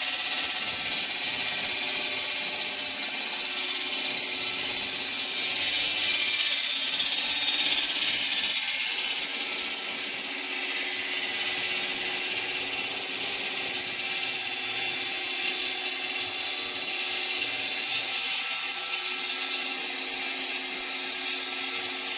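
Thin stone veneer saw running, its large circular blade cutting a stone block fed on a conveyor belt. A steady high hiss over the machine's hum grows louder about six to nine seconds in and again near the end.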